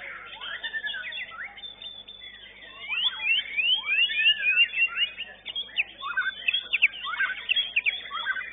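White-rumped shamas (murai batu) singing: rapid whistled notes and sharp upward-sweeping chirps that overlap one another, growing denser and louder from about three seconds in.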